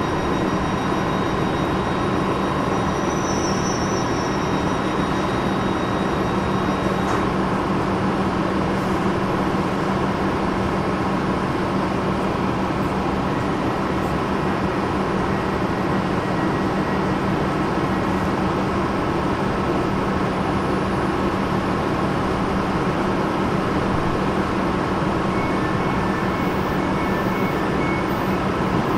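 Steady electric hum and blower noise from a Rhaetian Railway electric multiple unit standing at the platform. A few faint short high beeps sound near the end.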